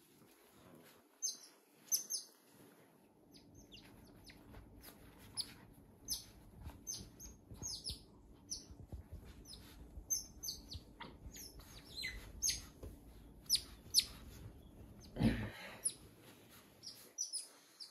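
Otters chirping: many short, high-pitched squeaks at irregular intervals, over soft rustling of bedding. There is a brief dull thud about fifteen seconds in.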